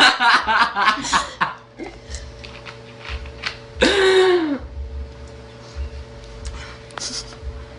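Quick pulsed giggling in the first second and a half, then about four seconds in one short, pitched belch from a girl that rises and falls in pitch, from gulping cola.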